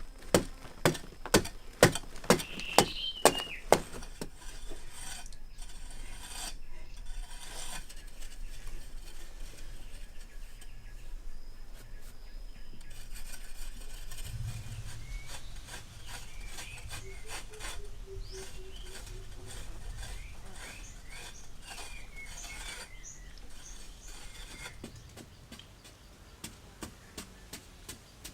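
Sharp rhythmic knocks, about two a second, for the first few seconds, then a long run of rapid scraping or rubbing, with birds chirping now and then.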